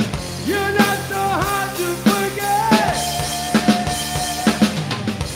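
A live bass-and-drums rock duo playing an instrumental passage: a bass guitar riff with notes bent down and back up, over a driving drum kit beat of kick, snare and cymbals.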